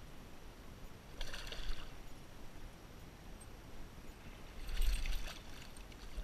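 A hooked smallmouth bass splashing and thrashing at the surface twice, briefly about a second in and more strongly around five seconds in.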